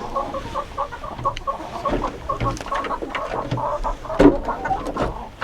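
Hens clucking repeatedly in the coop, with a few small knocks and clicks.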